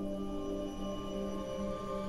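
Slow ambient background music of long, steady held tones.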